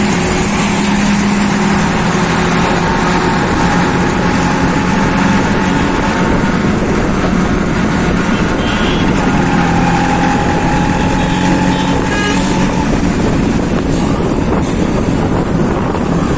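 Yamaha RX-Z's two-stroke single running under way through a stock five-speed CET silencer, mixed with loud highway traffic and wind noise.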